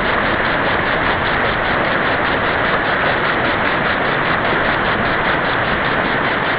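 Shallow mountain river running over boulders and stones: a loud, steady rush of water that does not change.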